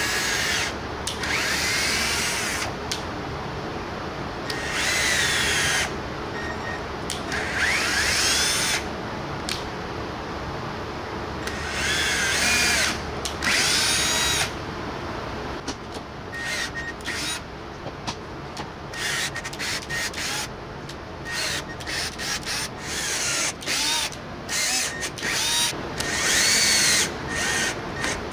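Handheld power drill run in repeated bursts of one to three seconds, its motor pitch rising as it spins up and falling as it slows. In the second half it comes as many short trigger blips.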